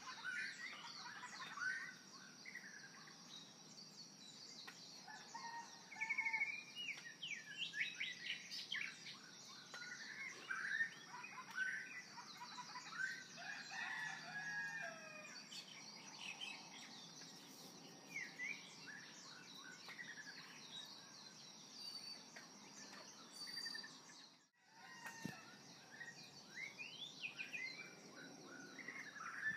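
Many birds chirping and singing in a dense chorus of short calls, over a steady high hiss. The sound cuts out briefly about five seconds before the end.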